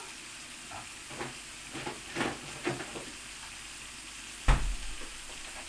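Meat sizzling in a frying pan while being stirred, with a few short clinks over the first three seconds and one loud knock about four and a half seconds in.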